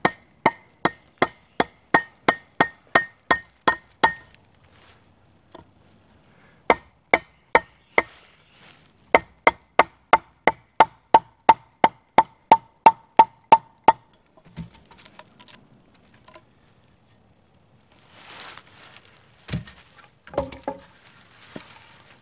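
Wooden baton striking the spine of a steel cleaver-style hatchet to drive it into a wooden pole resting on a log: runs of sharp, evenly spaced blows at about three a second, each with a short metallic ring. After about 14 seconds the blows stop and only a few scattered wooden knocks and some rustling follow.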